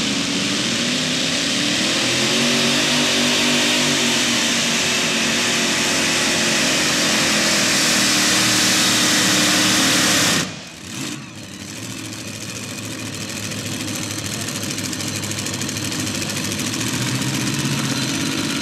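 Modified pulling tractor's supercharged engines running at full throttle under load, the pitch climbing and sagging as it drags the sled. About ten and a half seconds in the sound drops off abruptly to a lower, steady idle.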